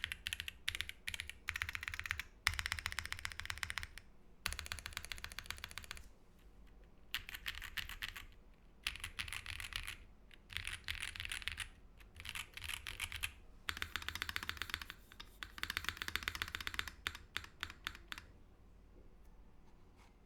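Typing on a fully foamed 68-key mechanical keyboard with Holy Panda tactile switches on an aluminum plate and GMK ABS keycaps, in fast runs of a second or two with short pauses between them, ending in a few separate keystrokes.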